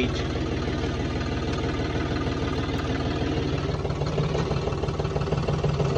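John Deere 5050D three-cylinder diesel engine, fitted with a modified fuel-injection pump and turbo, running steadily while the tractor pulls a 20-disc hydraulic harrow.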